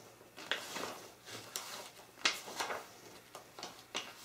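Pages of a glossy paper manual being turned and handled: an irregular run of short paper rustles and flicks, the sharpest about two seconds in.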